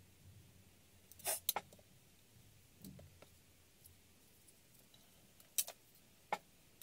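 Small sharp clicks and taps of metal tweezers and paper embellishments being picked up and set down on a cutting mat, about six separate ticks spread through the quiet.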